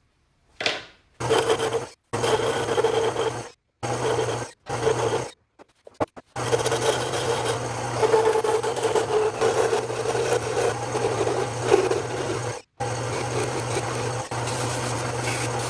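Wood lathe running while soft redwood is worked on it: a steady motor hum under rough rasping of wood. Several short stretches start and stop abruptly.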